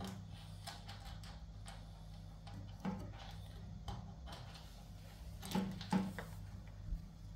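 Faint scattered taps and scrapes of a hand groping inside a washing machine's drain-pump filter housing, feeling for dropped screws, over a low steady hum.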